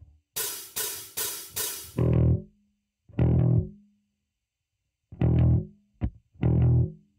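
Intro music: four quick cymbal hits, then four heavy guitar-and-bass chord stabs, each followed by a short silence.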